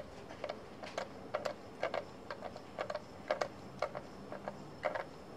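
Light, irregular mechanical clicks, about three a second, from a cylinder leak-down tester being worked while it is pressurised with compressed air, its gauge needles settling.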